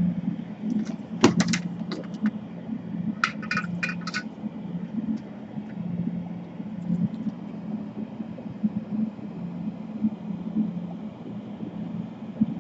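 Small metal tools or parts handled on a workbench: a few sharp clicks, then a quick cluster of ringing metallic clinks about three seconds in, over a steady low hum.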